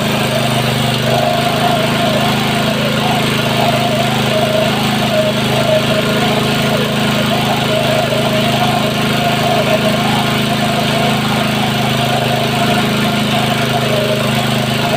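Small gasoline engine water pump running steadily at a constant speed, drawing water from a shallow well, with the water gushing and splashing from its outlet.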